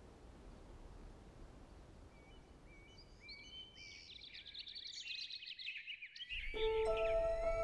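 Faint steady outdoor noise, then many birds chirping and singing, growing louder from about two seconds in. Near the end, sustained music notes come in under the birdsong.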